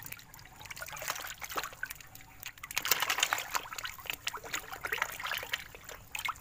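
Fish feeding greedily at the water surface of a pond: a busy patter of small splashes and smacks, thickest a little before the middle and again near the end.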